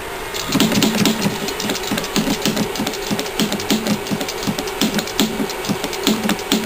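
Homemade solenoid-driven magnet motor running: a spring-loaded pull-type solenoid, pulsed at 12 volts through a razor-blade commutator, clacks with a short buzz about three to four times a second as it kicks the magnet rotor round. It starts about half a second in and is noisy.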